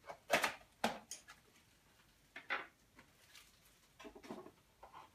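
A small boxed product being unpacked by hand. Its sealed wrapping and cardboard box give a few short, sharp rustles and crackles in the first seconds, then softer handling sounds near the end.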